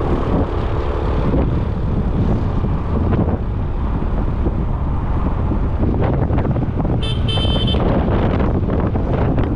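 Wind rumble on the microphone and road noise from a motor scooter riding at speed. About seven seconds in there is a short high horn beep in two quick parts.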